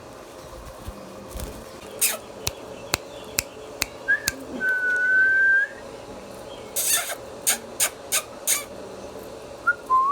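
Indian ringneck parrot making a string of sharp clicks, then a long whistle that rises slightly. A burst of short harsh calls follows, and a rising whistle comes near the end.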